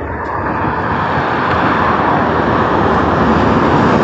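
CAF-built electric multiple unit approaching and running under the bridge: a steady rush of wheels on rails and air that grows louder as it nears.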